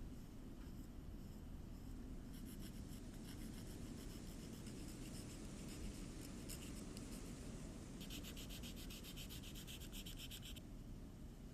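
Small-scale hand rubbing on a miniature chair part, in quick back-and-forth strokes that start about two seconds in and turn into a fast, even run of strokes about eight seconds in, stopping shortly before the end.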